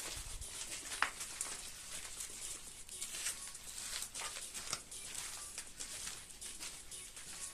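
Scattered light crackles and clicks, like footsteps crunching on grit and debris, with one sharper click about a second in.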